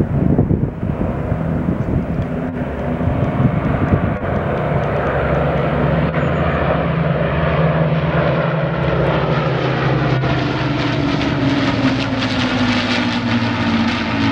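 Avro Lancaster bomber's four Rolls-Royce Merlin engines, with an escorting Spitfire and Hurricane, running steadily in a low formation flypast. The drone grows louder and its pitch drops slightly over the last few seconds as the formation comes overhead.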